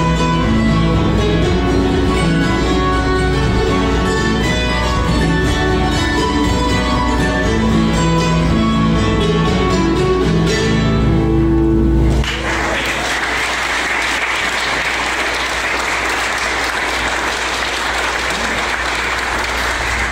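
Acoustic folk band playing a tune on mandolin and acoustic guitars, stopping about twelve seconds in, followed by steady audience applause.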